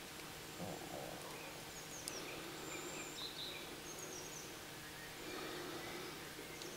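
Quiet woodland ambience with a few faint, short bird chirps scattered through it.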